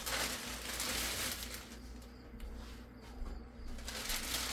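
Rustling and handling of the amplifier's plastic and foam packing, in uneven patches, over a faint steady low hum.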